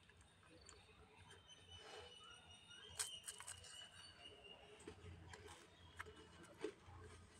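Faint close mouth sounds of eating a soft, melting ice cream cone: licking and lip smacks, with scattered small clicks and a sharper cluster about three seconds in.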